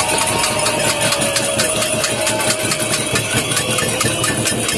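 Large protest crowd: a dense, steady din packed with many sharp claps or clicks, with a long held tone running through most of it.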